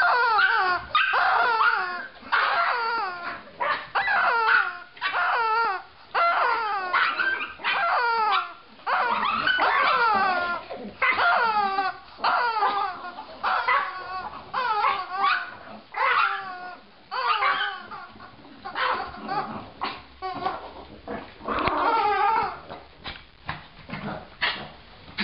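Squeaky rubber chicken toy squealing over and over as it is squeezed, each squeal falling in pitch, one or two a second, coming more sparsely near the end.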